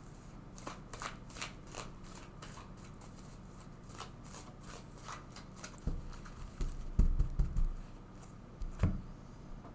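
Oracle cards being shuffled by hand: a run of light, quick flicking clicks, followed about six seconds in by several dull thumps as the deck is knocked or set down on the table.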